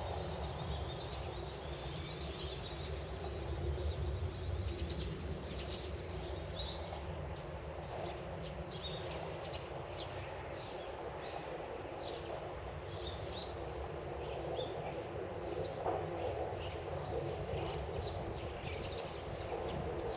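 Small birds chirping with short, irregular calls over a steady low outdoor rumble.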